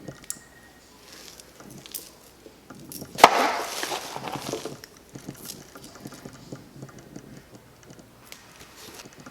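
Packaging being handled: small clicks and taps, then a sharp crackle about three seconds in that runs into about a second and a half of crinkling rustle.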